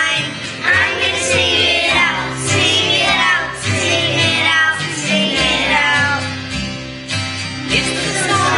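Children's voices singing a song over instrumental accompaniment, with steady bass notes underneath.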